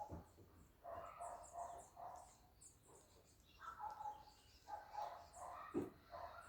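Birds calling and chirping: a lower call repeated in short runs of three or four notes, over thin high chirps of small birds.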